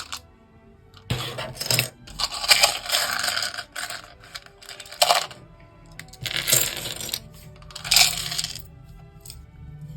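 Loose plastic LEGO pieces clattering and rattling in several separate bursts as they are sorted through, with faint background music.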